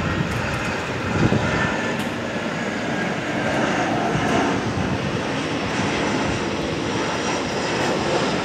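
Airbus A320-214's twin CFM56-5B turbofan engines at approach power as the airliner passes on final approach with its gear down: a steady jet noise that holds at an even loudness.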